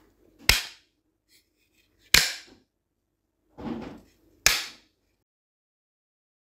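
Three sharp bangs about two seconds apart, each with a short ring after it, and a softer, duller thud just before the third.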